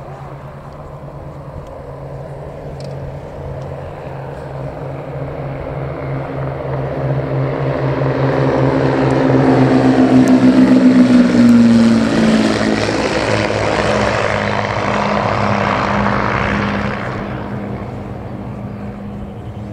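Three vintage twin-engine piston aircraft (a Let L-200D Morava, an Aero Ae-45S and an Aero Ae-145, all on Walter inline engines) flying past in formation. The propeller drone builds to its loudest about eleven seconds in, drops in pitch as the planes pass, then fades.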